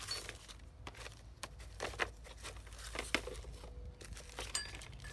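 Gloved hands handling small metal carburetor parts: scattered light clicks and clinks with a crinkling rustle.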